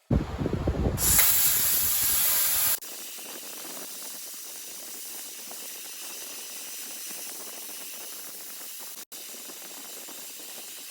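Plasma cutter cutting a hole freehand in 304 stainless steel: a loud, harsh hiss for almost three seconds, then it drops to a steady, quieter air hiss.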